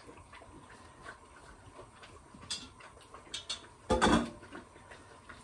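Kitchen handling noises: scattered light clicks and taps, with one louder clatter about four seconds in.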